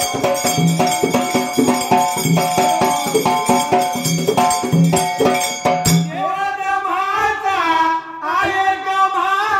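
Dhol drum with jingling hand percussion playing a fast folk rhythm, the dhol's low beat repeating steadily. The rhythm stops with a sharp stroke about six seconds in, and a man's voice starts singing a drawn-out line of a Marathi shahiri folk song.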